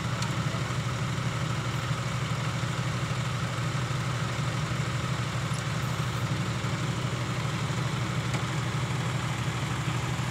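Diesel engine idling steadily with a low, even hum, with the dump truck's bed raised, tipping out its load of laterite.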